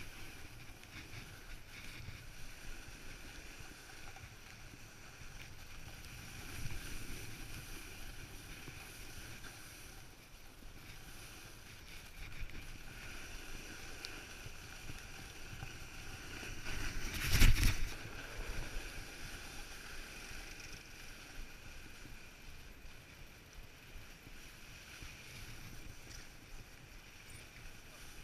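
Snowboard sliding and scraping over packed snow, heard from a camera carried by the rider, with wind rushing over the microphone. About seventeen seconds in there is a louder rush of noise lasting about a second.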